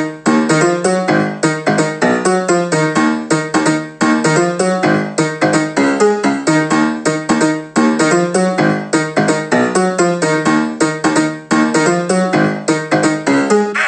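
Keyboard music: a fast run of quickly repeated piano-like notes, with no singing.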